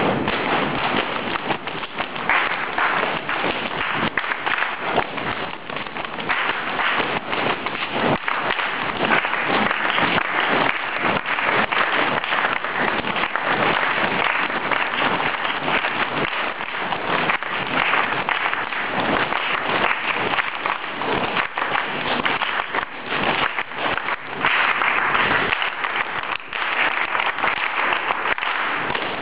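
Ensemble body percussion: many performers clapping and tapping together in a dense patter of sharp hand sounds.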